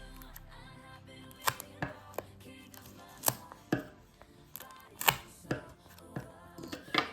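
Background music with about eight sharp clicks and crackles from a blind-bag packet being handled, the loudest about five seconds in.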